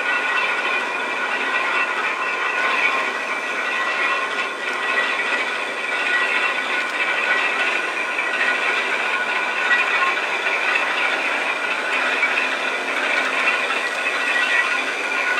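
Railway turntable turning slowly with an EF81 electric locomotive on it: a steady hiss-like whir with a high, even whine, unchanged throughout.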